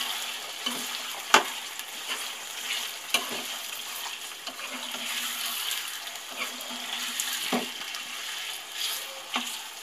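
Raw chicken pieces sizzling and frying in hot oil in a nonstick kadai while a spatula stirs them, with a few sharp knocks of the spatula against the pan, the loudest about a second and a half in.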